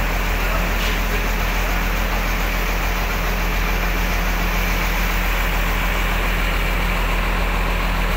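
Intercity bus's diesel engine idling steadily: an even, unchanging low hum.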